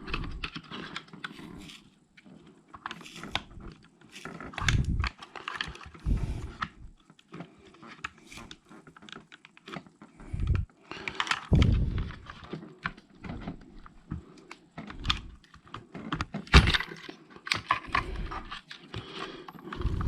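Irregular clicks, knocks and rattles of plastic parts on a Traxxas Maxx RC truck chassis being handled and pried at, with a few duller thumps. The parts are being worked loose from double-sided tape.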